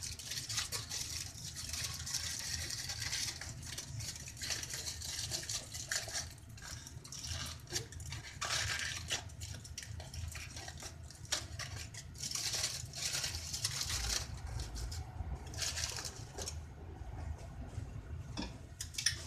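Aluminium foil crinkling and rustling as it is folded and pressed down over dishes in a frying pan, in irregular crunchy bursts. A steady low hum runs underneath.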